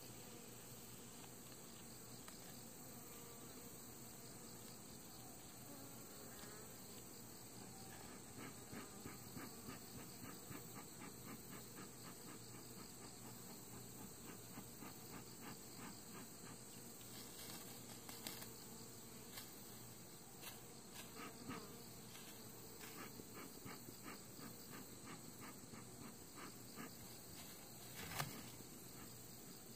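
Faint buzzing of honeybees around an open hive, with soft regular clicks a few times a second through the middle and one louder click near the end.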